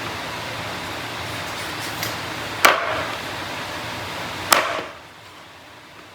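Two sharp chops of a knife on a wooden cutting board, with a lighter tap before them, over a steady hiss that drops away abruptly near the end.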